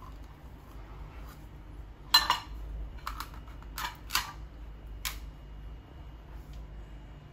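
A handful of short, sharp clicks and knocks of hard objects, the loudest about two seconds in and the rest spread over the next three seconds, over a low steady hum.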